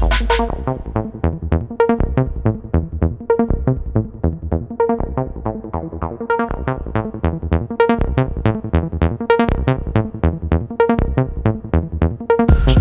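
Electronic dance music. About half a second in, the full beat and bass drop away to leave a fast, even run of plucked synth notes. The full beat comes back near the end.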